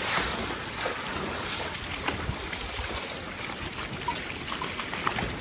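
Floodwater rushing steadily, with scattered short knocks and splashy clicks over it.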